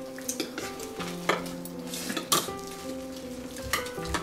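Spoons and utensils clinking and scraping against bowls and plates while people eat, with a few sharp clinks, over background music with held notes.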